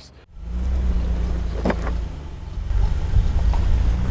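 Off-road Jeep's engine running at low revs while rock crawling, a steady low rumble.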